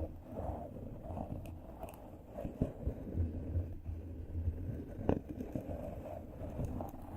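Close-up ASMR friction sounds: something rubbed and scratched directly against the microphone, giving a muffled low rumble with soft crackles and one sharp click about five seconds in.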